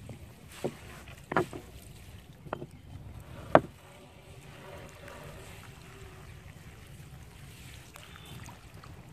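A few sharp knocks on a narrow wooden boat as a monofilament gill net is handled and fed over its side, the loudest about three and a half seconds in. A steady low wind rumble lies underneath.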